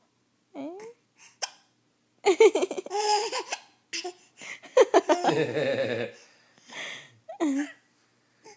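Baby hiccuping in short, pitched little gulps. A bout of laughter fills the middle few seconds.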